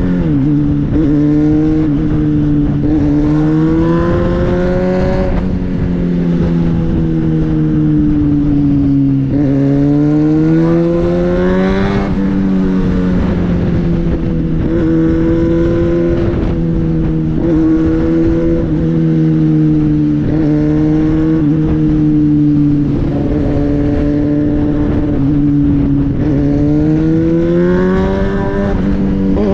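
Kawasaki ZX-6R inline-four engine running under way, the engine note climbing with each pull and falling back when the throttle closes, several times over, with steady wind rush.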